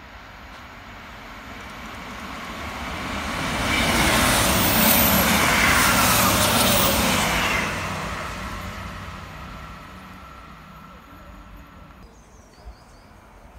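South Western Railway passenger train passing through the station at speed, its wheel and rail noise building over about four seconds, peaking for about three, then fading away.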